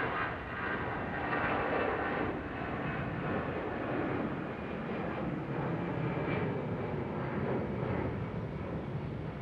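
Eurowings Airbus A320-216's twin CFM56 turbofan engines at takeoff thrust as the jet lifts off and climbs away: a steady dense engine noise with a high whine over the first couple of seconds, which fades and leaves a deeper rumble.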